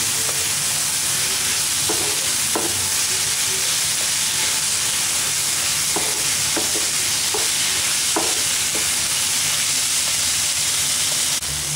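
Onion-tomato masala sizzling steadily in a non-stick pan while a wooden spatula stirs and mashes the softened tomatoes, with a few soft spatula scrapes now and then.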